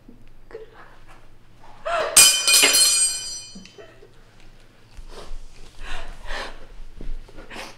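A sudden, loud, high-pitched cry about two seconds in, lasting over a second, then several heavy, gasping breaths.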